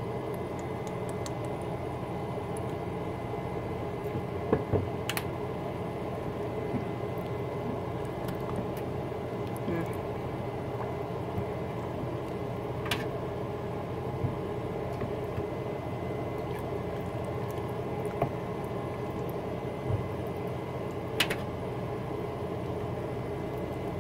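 Spoon stirring thick bean chili in a crock pot, wet squelching, with a few sharp clicks over a steady background hum.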